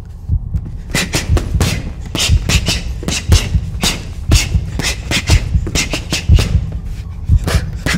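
Fast flurries of boxing punches, sharp hits and snaps about three or four a second, starting about a second in, over a low steady throb.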